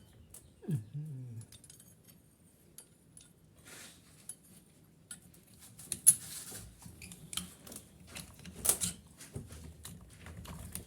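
Scattered light clicks and clinks of small hard objects, with a brief falling sound about a second in and a few sharper knocks later on. No drill running.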